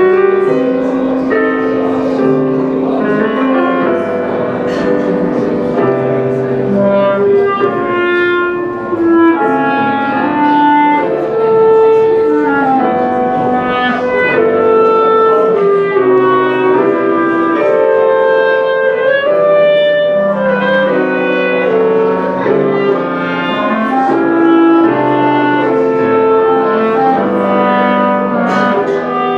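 Two clarinets playing a melody together in close unison and harmony, over a piano accompaniment.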